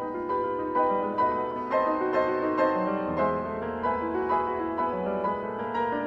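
Background classical piano music, with notes struck at a gentle pace of about two a second.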